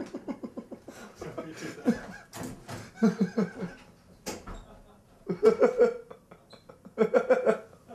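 People laughing in several bursts of quick, rhythmic ha-ha pulses, with a single sharp click about four seconds in.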